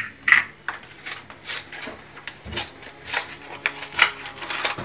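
Handling noise from a plastic blender jar and a milk carton being moved and set down on a counter: a sharp knock at the start, then scattered irregular taps, clicks and rubs.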